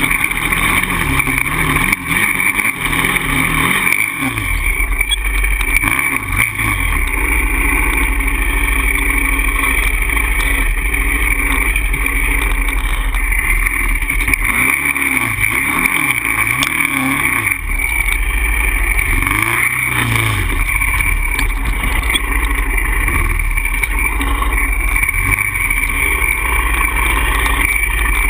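Polaris Outlaw 525 quad's single-cylinder four-stroke engine running under way, its pitch rising and falling in repeated swells as the throttle is worked.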